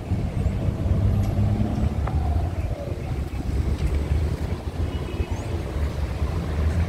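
Traffic on a nearby city street, with wind rumbling on the microphone; a passing vehicle's tone falls in pitch about two seconds in.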